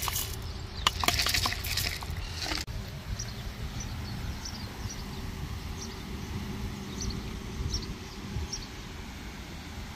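Clattering and rustling for about two and a half seconds, then an abrupt change to a steady low outdoor rumble with faint short high chirps every second or so.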